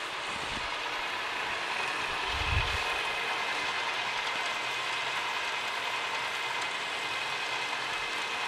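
Milling machine running an end mill through a metal block, a steady whirring cut with a faint whine, partway through a slotting pass. A single dull thump about two and a half seconds in.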